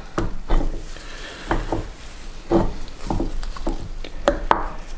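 Irregular light metallic clicks and knocks as a new piston is wiggled and pushed into the bore of a motorcycle front brake caliper clamped in a vise.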